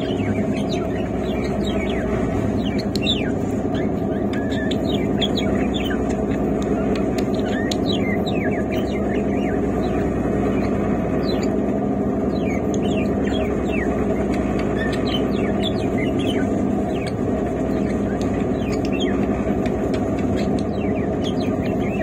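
Caged budgerigar and cockatiels chirping in many short, rapid notes over the steady rumble of a moving train coach.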